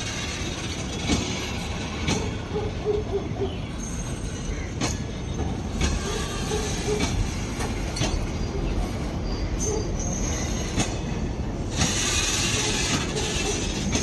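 Loaded freight train wagons rolling past with a steady rumble and regular paired clacks of the wheels over rail joints. About twelve seconds in, a louder high-pitched hiss rises briefly.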